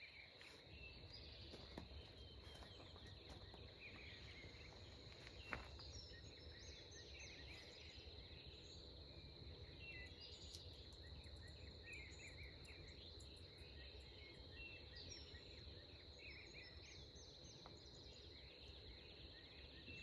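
Faint evening insect chorus: a continuous high-pitched drone of crickets or similar insects, with scattered short bird chirps over it. A single sharp tap about five and a half seconds in is the loudest moment.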